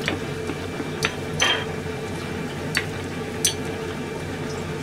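A utensil stirring and knocking in an aluminium saucepan of Pacific cod roe simmering in soy-dashi broth, giving about five light clinks against the pan over a steady simmering hiss and hum.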